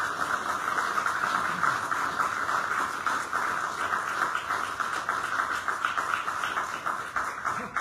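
Audience applauding: dense, steady clapping that stops shortly before the end.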